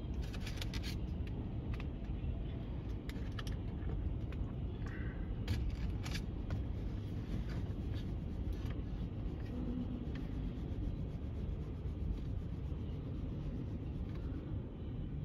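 Freight train of tank cars rolling past: a steady low rumble of steel wheels on rail, with scattered metallic clicks and scrapes, most of them in the first second and around five to six seconds in.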